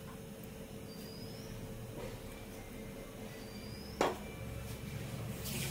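Low steady hum of a quiet kitchen, broken about four seconds in by a single sharp knock as the steel mixer-grinder jar of ginger-garlic paste is put down; a brief rustling hiss follows near the end.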